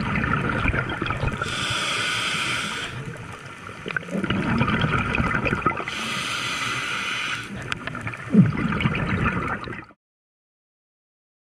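Scuba diver breathing through a regulator underwater: two breaths, each a hissing inhale followed by a gurgling rush of exhaled bubbles. The sound cuts off abruptly near the end.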